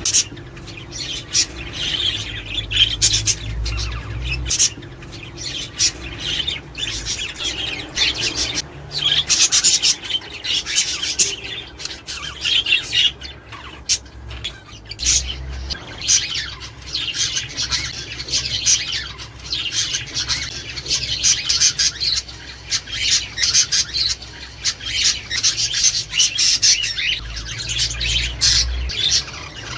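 Budgerigars chattering: a steady stream of quick, overlapping chirps and warbles.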